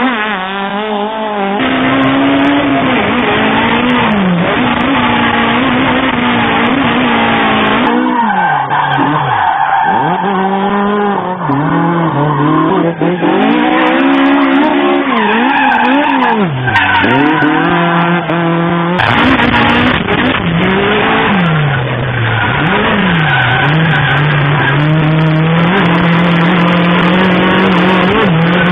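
Toyota AE86 Sprinter Trueno drifting: its 4A-GE twin-cam four-cylinder engine revs up and down over and over through the slides, with tyres squealing. The sound changes abruptly a few times from shot to shot.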